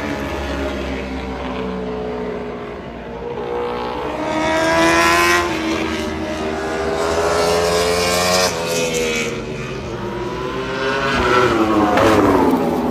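World Superbike racing motorcycles running at high revs as they pass one after another, each engine's pitch rising and then dropping sharply as it goes by, about three passes.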